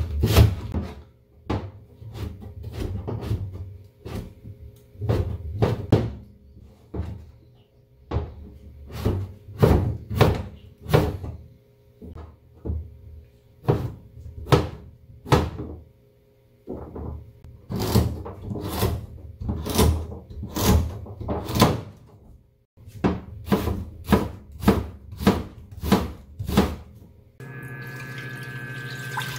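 Kitchen knife chopping green onion and then Korean zucchini on a plastic cutting board: a long run of sharp knocks, about two a second, in bursts with short pauses. Near the end the chopping stops and a steady hum takes over.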